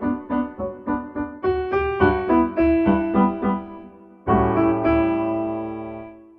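Background piano music: a light run of notes, then a chord struck about four seconds in that rings on and fades away.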